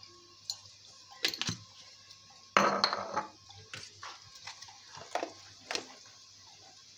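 Scattered clinks and knocks of glass dessert bowls on a tiled counter, with a louder scraping clatter about two and a half seconds in, over a faint steady hum.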